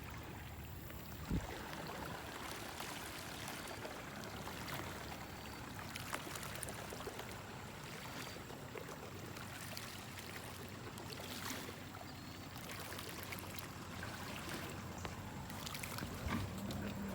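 Faint steady rush of flowing river water, with a soft knock about a second in and scattered light clicks.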